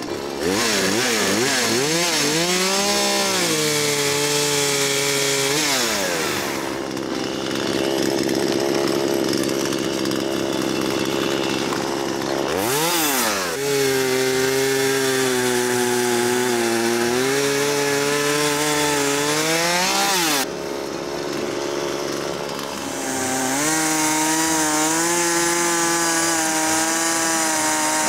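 Husqvarna 236 two-stroke chainsaw running hard, first with its Oregon PowerSharp chain driven against the sharpening stone at the bar tip, then cutting rounds off a log. The engine revs up and down several times between spells at steady high revs.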